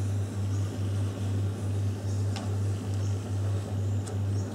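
A steady low hum that swells and fades about twice a second, under the faint scratch of a pencil tracing an ellipse on paper, held against a string loop around two nails. Two light clicks, one a little over two seconds in and one about four seconds in.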